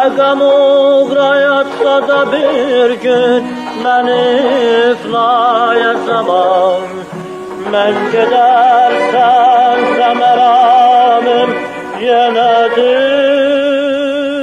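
A man singing an Azerbaijani song in long ornamented phrases with strong vibrato, holding a long note near the end.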